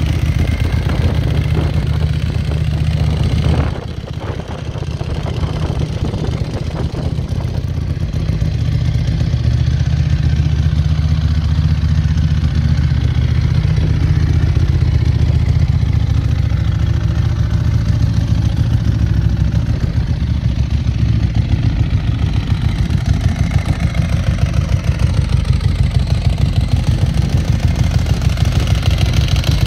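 2010 Ducati Streetfighter's 1099 cc L-twin idling through Termignoni carbon twin silencers, a steady, even beat. The level drops about four seconds in and builds back over the next few seconds.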